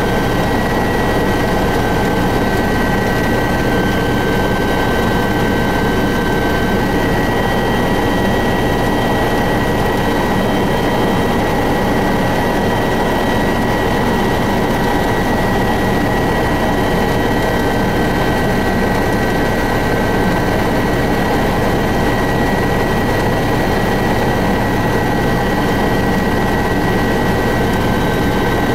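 Helicopter in flight, heard from inside the cabin: a loud, steady drone of engine and rotor with a constant high-pitched whine over it.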